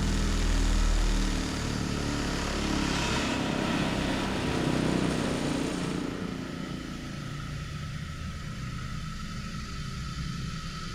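A motor or engine running with a steady low hum that changes pitch a couple of times and eases off about six seconds in, leaving a faint high whine.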